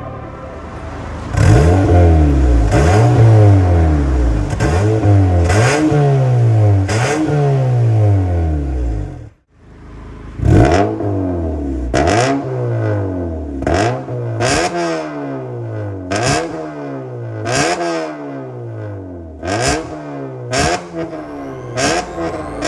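Honda Civic 1.8 engine through an MS-R aftermarket full exhaust with a valved muffler, revved in a series of quick blips: each rev jumps up sharply and falls away, about one every second or so, with a short break near the middle.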